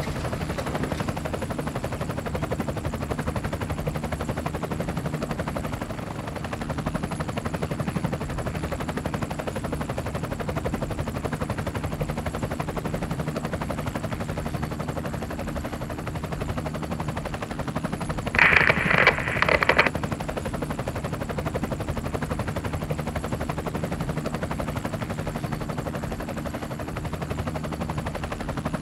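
A steady low mechanical hum with a dense, even noise above it. About two-thirds of the way through comes a louder, higher-pitched burst lasting about a second and a half.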